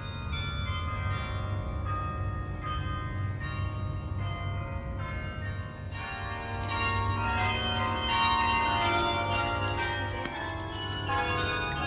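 Carillon bells of Bok Tower playing a tune, note after struck note ringing on, the playing growing fuller and louder about halfway through. A steady low rumble runs underneath.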